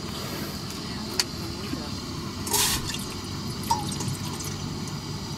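Water poured from a plastic bottle into a stainless steel camping pot, trickling and splashing, with a short louder rush about two and a half seconds in.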